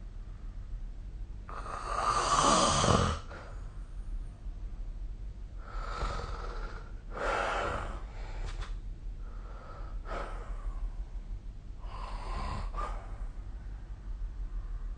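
A sleeping person snoring. There is one long, loud snore about two seconds in, then a run of shorter, softer snoring breaths every second or two, and another snore near the end.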